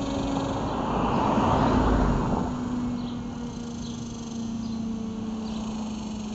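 Outdoor warning sirens winding down after a test alert, their low, steady tones sliding slowly lower. A passing vehicle swells and fades about a second in, the loudest sound here.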